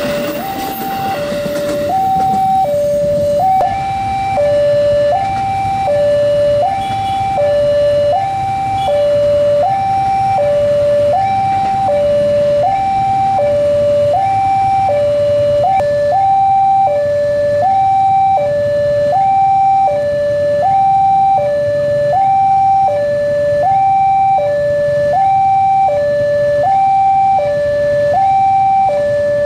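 Railway level-crossing warning alarm sounding a steady electronic two-tone alternation, each tone about three-quarters of a second long, the signal that a train is approaching the crossing. The rumble of a passing KRL commuter train dies away in the first couple of seconds.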